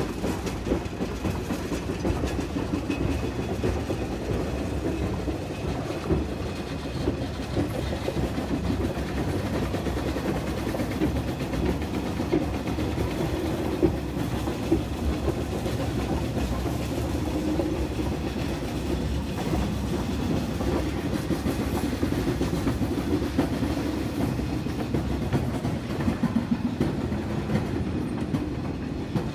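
A large railroad turntable rotating, its machinery and wheels making a steady rumble with small irregular knocks.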